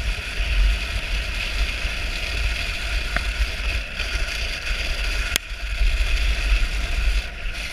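Dog sled running over a packed snow trail: a steady low rumble and hiss of the sled moving over the snow, with wind on the microphone. A single sharp click about five seconds in.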